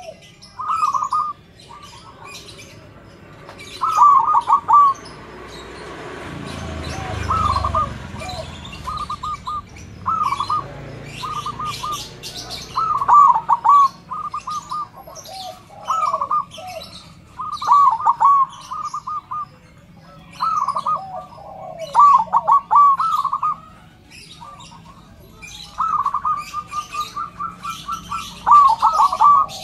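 Zebra dove (perkutut) cooing: repeated phrases of rapid stuttering notes, a new phrase every two to three seconds.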